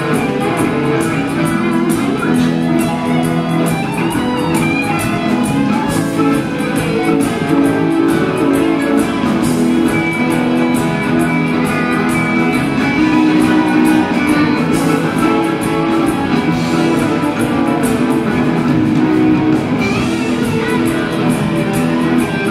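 Live rock band jamming, electric guitars to the fore over a steady drum beat.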